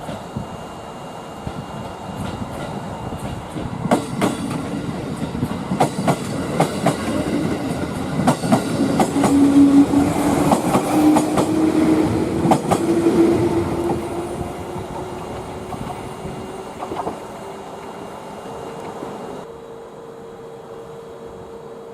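A train moving over the rails, its wheels clicking over rail joints, louder in the middle. A motor whine rises slowly in pitch as it runs.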